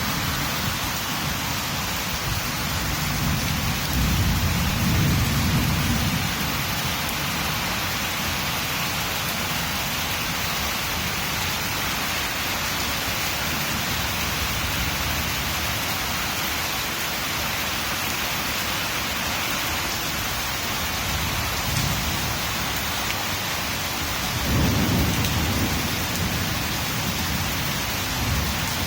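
Heavy rain falling steadily, with rolls of thunder rumbling twice, about four seconds in and again near the end.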